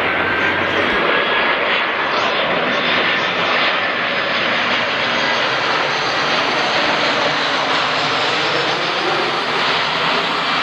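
Jet engines of an Air Berlin Airbus A320-family airliner on landing approach, passing low and close: a steady, loud rush of engine noise with a faint high whine.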